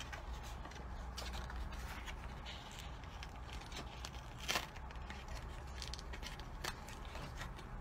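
A sheet of sticky paper being handled: faint rustling and crinkling, with one short louder crackle about halfway through, over a low steady hum.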